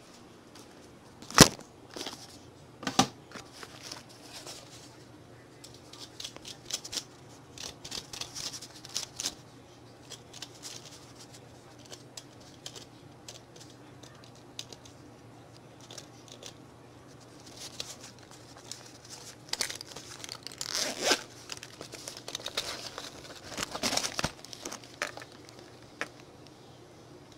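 Handling noises: a sharp click about a second in and another a couple of seconds later, then scattered rustling and crinkling, heaviest near the end.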